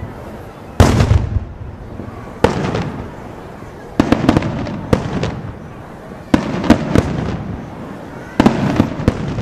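Daytime aerial fireworks: about six loud shell bursts, one every second or two. Each burst is followed by a spatter of smaller crackling pops and a decaying echo.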